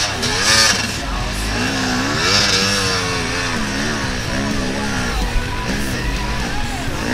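Yamaha YZ250 two-stroke dirt bike engine revving up and down in short throttle bursts, the pitch rising and falling again and again, as it is ridden slowly over rocks, with music playing over it.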